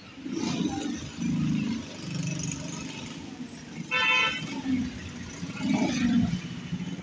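Street traffic running, with one short car horn toot about four seconds in.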